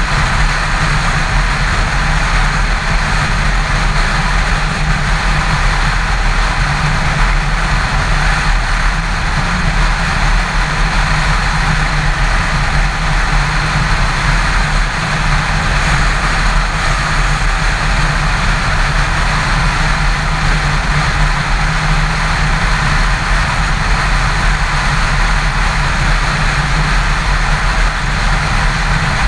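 Yamaha FZ6 motorcycle cruising at steady highway speed: a constant engine hum under loud, even wind rush on the mounted GoPro.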